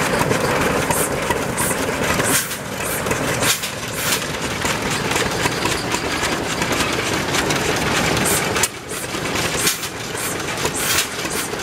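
Several vintage stationary engines with open spoked flywheels running together, with sharp exhaust reports at uneven intervals over a dense running noise.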